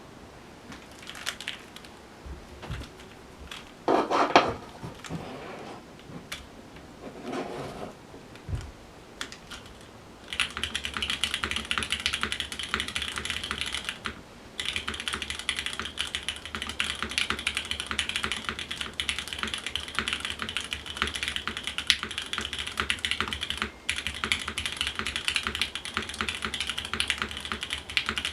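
Mechanical keyboard with Cherry MX Black linear switches on a full aluminium plate, with 60 g TX springs and lubed Cherry stabilizers, being typed on. A few scattered key presses and knocks give way, about ten seconds in, to fast continuous typing with two brief pauses.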